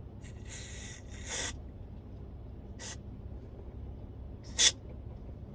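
Aerosol can of CRC QD electronic contact cleaner sprayed through its straw into a car radio's volume control: one hiss of just over a second, then two short puffs, the last the loudest. It is being used to clean a volume knob that jumps erratically.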